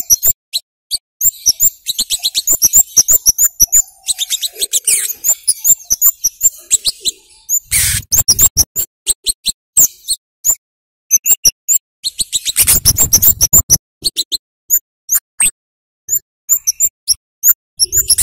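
Flowerpecker (kemade, cabai jawa) calling in fast runs of very short, sharp, high 'cit' chirps with brief pauses between runs. Three short noisy bursts break in, at about 8 seconds, 13 seconds and near the end.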